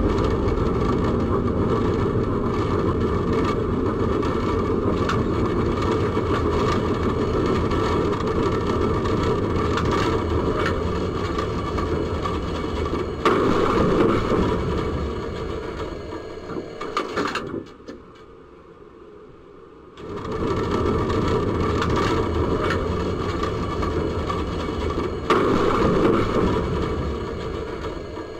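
Tram running along its rails, heard from inside the driver's cab as a steady low rumble. About halfway a sudden loud noise rises out of it; the sound then drops away for a couple of seconds, and the rumble and another sudden loud noise come again near the end.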